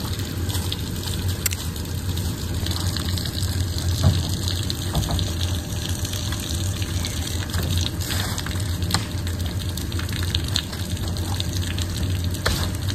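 Steady stream of water gushing from the hull of a trailered boat and splashing onto the concrete ramp as the boat drains.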